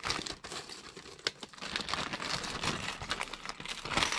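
Small clear plastic bag crinkling as it is handled, with loose LEGO pieces clicking and rattling against each other inside it; a dense, irregular run of small clicks throughout.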